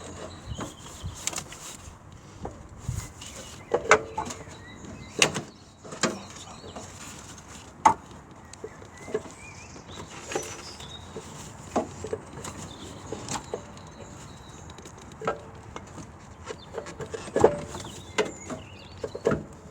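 Irregular knocks, clunks and scrapes of a car alternator being worked and wriggled out of a tight engine bay past a pipe.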